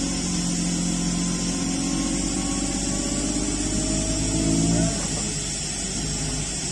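Engine of a large forklift with a tire-handler clamp running steadily under load, then dropping back to a lower, quieter run about five seconds in. A faint whine rises slowly in pitch above the engine before the drop.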